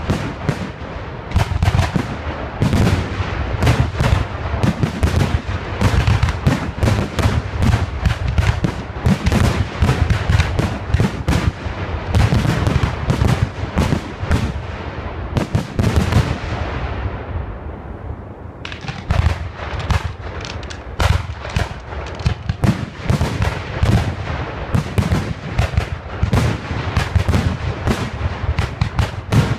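Fireworks display: aerial shells bursting in a rapid, continuous barrage of bangs. The bangs thin out briefly about two-thirds of the way through, then resume suddenly.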